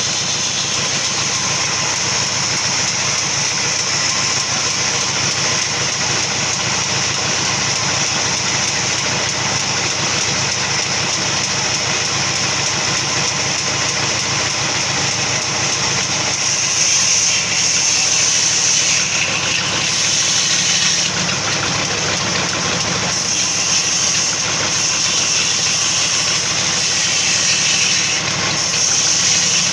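Sawmill machinery running steadily, with a continuous high whine over a lower mechanical drone. It grows slightly louder and more uneven about halfway through.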